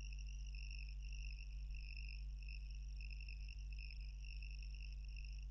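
Faint room tone between narration: a low steady hum under a steady, high-pitched trilling whine.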